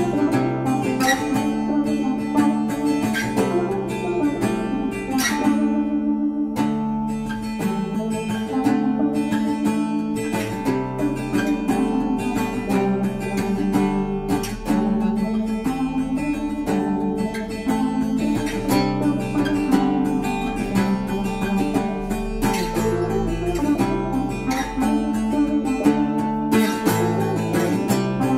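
Background music led by acoustic guitar, with strummed chords that change every second or two.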